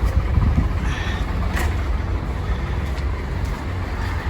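Truck engine running at low revs, a steady low hum heard from inside the cab, with a faint click about a second and a half in.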